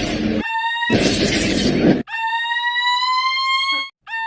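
Edited-in sound effects: a steady high beeping tone that slowly rises in pitch. It is twice overlaid by loud crashing noise in the first two seconds, and it cuts out for a moment near the end.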